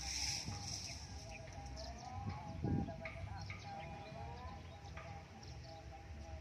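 Rural outdoor ambience with scattered short bird chirps over a steady low rumble and faint wavering tones. A single dull bump comes about two and a half seconds in.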